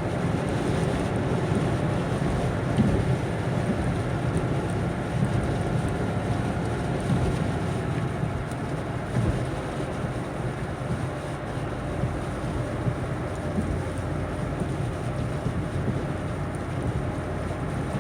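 Car driving at highway speed: a steady low drone of engine and tyre noise.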